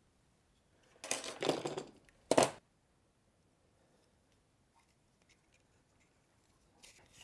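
Hands handling the plastic rope rotor and starter rope of a chainsaw recoil starter on a metal workbench. There is about a second of rustling and scraping, then a short, louder clatter, followed by faint small handling ticks.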